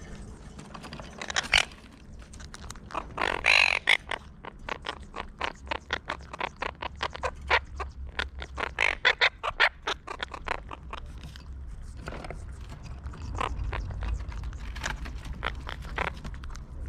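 Monk parakeets feeding at close range: rapid, irregular clicks and taps of their beaks picking at pork fat, with a short harsh parakeet call about three and a half seconds in.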